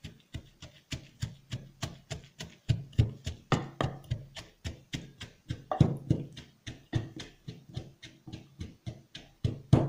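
Wooden pestle pounding shaved black summer truffles in a wooden mortar: a steady run of knocks, about three a second, some strokes harder than others.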